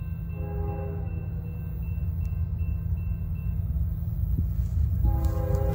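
Air horn of an approaching Norfolk Southern diesel freight locomotive sounding a steady chord: a short blast about half a second in, then a longer one starting about five seconds in, over a steady low rumble.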